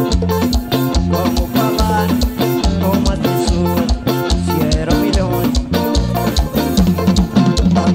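Live Brazilian dance-band music with a fast, steady beat and a moving bass line under melodic instrument lines, without vocals.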